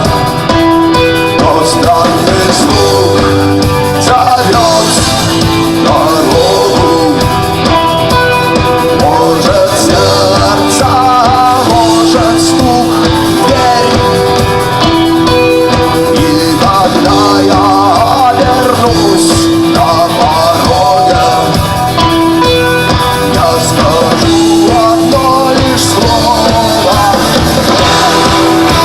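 Rock music with guitars and drums, playing continuously at a steady loud level, with a bending lead melody over held notes.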